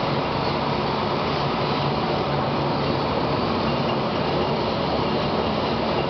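Graffenstaden 1720 1L vertical turning lathe running under power, a steady mechanical hum with a faint low tone, while its ram traverses vertically.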